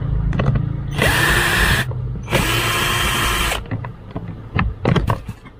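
Ingco cordless drill backing out the two bolts of an under-dash panel: two short runs of the motor, each winding up to a steady high whine, about half a second apart. A couple of sharp clicks follow near the end.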